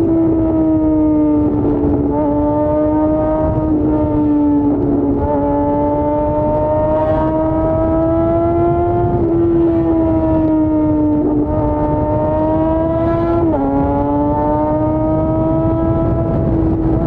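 Yamaha FZ6's inline-four engine running at high revs under way, its pitch slowly sinking and climbing, with a sudden drop about thirteen seconds in, over a low rush of wind and road noise.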